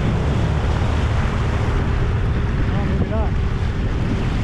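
Sea-Doo RXT-X 300 personal watercraft running at speed over open lake water: a steady engine hum with wind buffeting the microphone and the rush of water off the hull.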